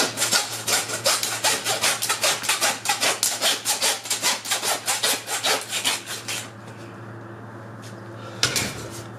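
Hacksaw cutting through a deer's neck bone in quick, even back-and-forth strokes, stopping about six and a half seconds in once the neck is through. A single knock near the end.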